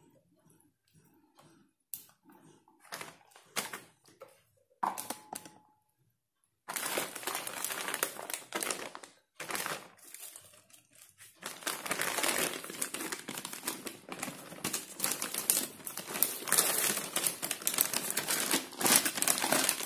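A few scattered clicks and knocks of a plug being pushed into the scanner's port, then from about seven seconds in a long, continuous crinkling and rustling of plastic packaging being handled.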